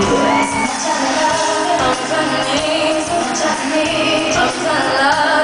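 Live pop music: a woman singing a slow melody into a microphone over acoustic guitar accompaniment.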